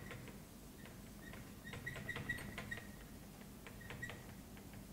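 Whiteboard marker writing: a faint string of short, high squeaks with light taps, busiest about two seconds in and again near the end.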